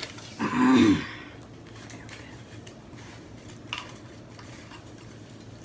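A brief burst of voice near the start, then quiet handling of a small cardboard box of game cards as a card is drawn out, with one light click about three and a half seconds in.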